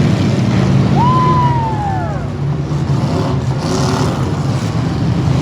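Engines of stock V8 demolition derby cars running and revving together, loud and steady. About a second in, a high whistle rises briefly and then slides down in pitch.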